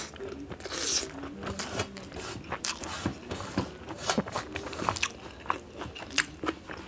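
Close-miked chewing of a mouthful of rice, with a string of small wet clicks and crunches. Fingers mix and scrape rice across a metal plate.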